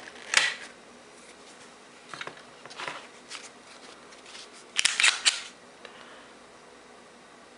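Clicks and clacks from handling a Glock 19 pistol and its hard plastic case, with the loudest quick run of sharp clicks about five seconds in.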